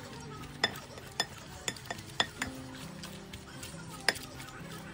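Plastic potato masher knocking and scraping against a glass bowl while mashing potato, herbs and fish together: a run of sharp clinks about half a second apart, then one more near the end. Quiet background music comes in partway through.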